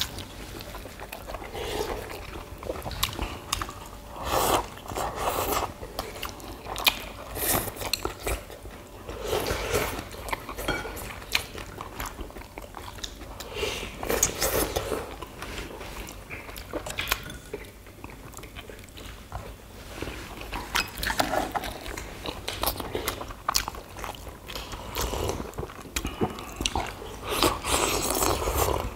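People eating close to the microphone: chewing and slurping pollack stew, with irregular sharp clicks of metal chopsticks and spoons against bowls and dishes.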